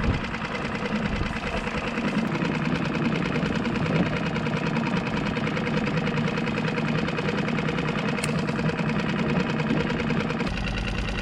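Small outboard motor on a one-person skiff running steadily with a fast, even chugging, its low note shifting near the end.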